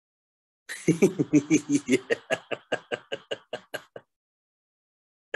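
A person laughing: a run of short 'ha' pulses, about six a second, that grow fainter and further apart over about three seconds before stopping.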